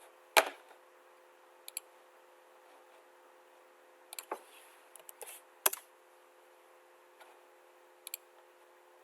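Scattered computer mouse clicks and key taps, some in quick pairs like double-clicks, with two louder clicks about half a second in and near the middle, over a faint steady electrical hum.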